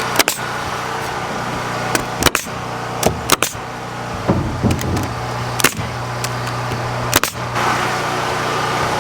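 Sharp, irregular knocks of a roof sheathing board being nailed down, about eight strikes, over the steady low hum of an engine or motor running.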